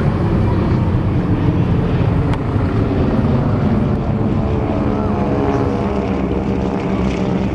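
Piston engines of three single-engine propeller warbirds flying low overhead in formation, a steady drone whose pitch falls slightly in the second half as they pass.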